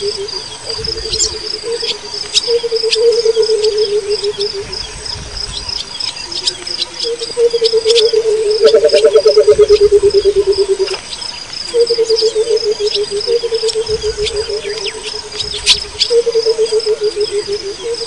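Burchell's coucal giving its bubbling 'water-bottle' call: several long phrases of rapid low hoots run together, each lasting a few seconds with short gaps between. A steady high chirring of insects runs underneath.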